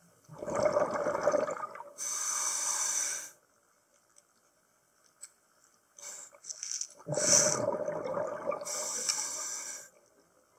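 Scuba diver breathing through a regulator underwater, twice: each breath is a burble of exhaled bubbles followed by the hiss of an inhalation through the regulator.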